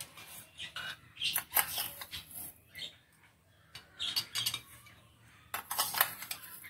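Metal spoon scraping and clinking against a stainless steel bowl as white sugar is scooped up and tipped into a glass jar, in several short bursts of clinks and scrapes.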